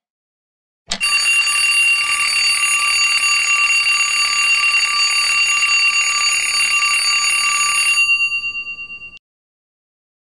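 A wake-up alarm ringing loudly and shrilly. It starts abruptly about a second in, with a fast flutter in its loudness, and cuts off after about seven seconds, leaving its tones to die away over the next second.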